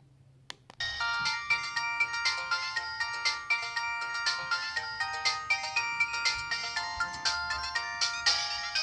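LG TM125 (LX125) mobile phone ringtone playing: after a moment of near silence and a single click, a quick melody with several notes sounding at once and a steady beat starts about a second in and keeps going.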